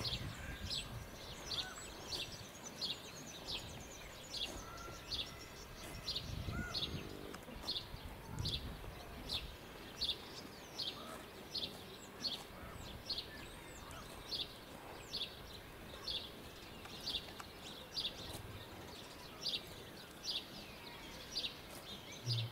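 A small bird calling a short, high chirp over and over, about every half second, over quiet outdoor background, with a couple of faint low thuds.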